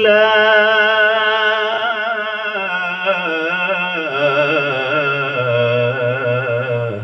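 A man reciting Quran verse 2:156 in melodic tajweed style, drawing out the word "lillah" (of "inna lillahi") as one long ornamented note with a wavering pitch. The melody steps lower about four seconds in, and the note fades out near the end.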